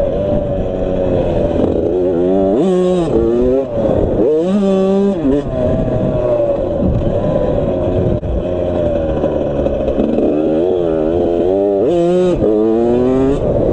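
Suzuki RM85 85cc two-stroke single-cylinder dirt bike engine being ridden hard, its pitch climbing and falling again and again through throttle and gear changes.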